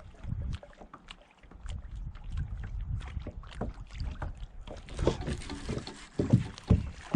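Knocks and handling sounds in a fishing kayak, with water sounds. A steady hiss comes in about five seconds in, and a few sharper knocks follow near the end.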